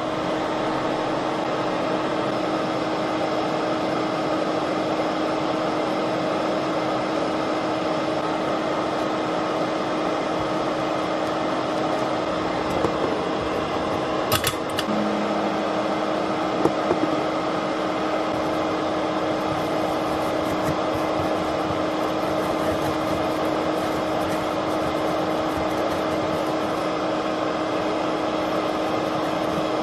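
Hot air rework station blowing steadily, a fan-like hiss with a steady hum, while desoldering the EFI flash chip from a MacBook logic board. A few light clicks near the middle.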